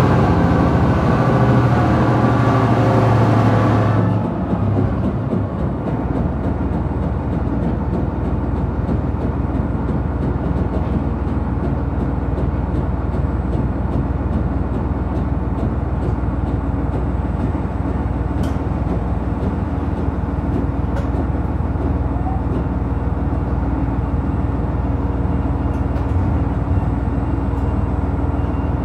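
ET122 diesel railcar running with its engine under power, a strong steady engine note for the first few seconds. About four seconds in the engine eases off, leaving a steady low rumble of the moving railcar with a few light clicks.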